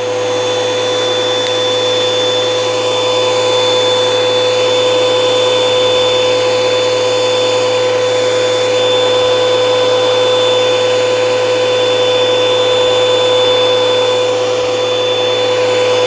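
Bosch AQT 125-bar pressure washer running steadily with the lance open and no nozzle fitted, a constant motor-and-pump hum with a high whine. The pump is drawing water through to push out air and grit before the nozzle goes on.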